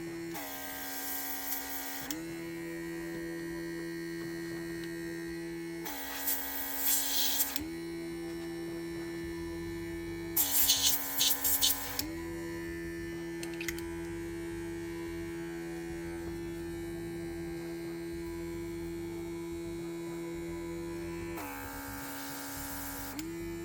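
A small battery-powered air brush compressor runs with a steady electric hum. Four times, about 1 to 2 seconds each, the trigger is pressed and air hisses out of the nozzle while the motor's pitch drops under the load, then the pitch comes back up.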